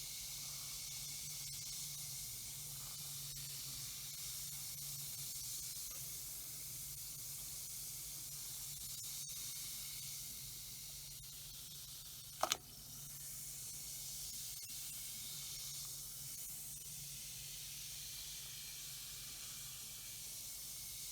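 Smashers Dino fizzing egg dissolving in a bowl of water: a steady, soft, fizzy hiss. A single sharp click comes about twelve seconds in.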